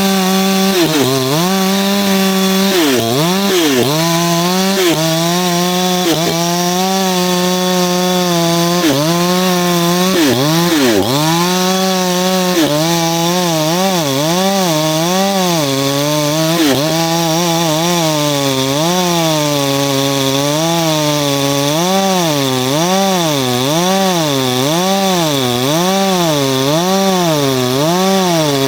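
Two-stroke chainsaw cutting wood at high revs, its engine pitch dipping sharply a few times as the chain bites, then rising and falling about once a second through the second half as the bar is worked through the cut.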